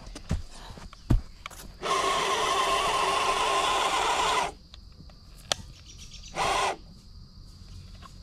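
Traxxas TRX4 RC crawler's electric motor and drivetrain running loud as the truck drives, in one burst of about two and a half seconds and a short second burst near the end. There are a few dull thumps in the first second.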